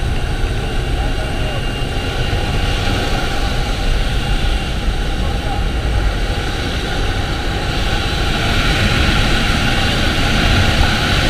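Steady engine drone and wind rush inside a Pilatus jump plane's cabin with the side door open, the rushing hiss growing louder about eight seconds in.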